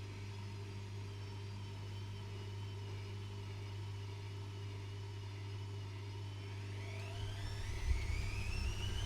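Privileg Classic 30612 washing machine running with a steady hum. About six and a half seconds in, its motor starts a rising whine and the drum rumbles louder as it speeds up.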